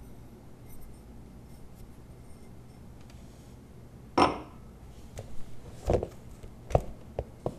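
Glassware and small objects handled on a table: short knocks and glass clinks, led by one louder, sharper hit about four seconds in.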